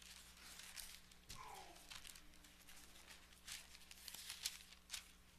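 Faint rustling and crinkling of thin Bible pages being turned at a pulpit, with a few soft scattered clicks, over a steady low electrical hum. A brief faint falling tone comes about a second in.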